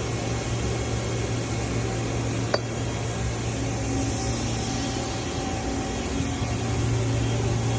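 CNC lathe running with a steady hum and hiss. One sharp click about two and a half seconds in.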